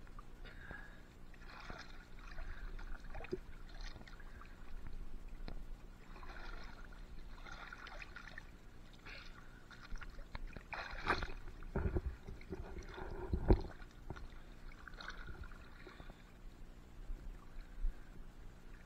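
Water sloshing and splashing at the surface as a scuba diver moves about in it, heard from a camera at the water line, with a few louder dull knocks a little past halfway.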